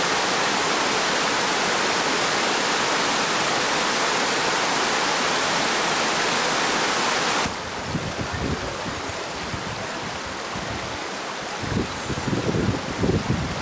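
Spring water rushing out of a rock face and cascading over stones, a steady loud rush that cuts off suddenly about seven and a half seconds in. A quieter outdoor hiss follows, with irregular low rumbling near the end.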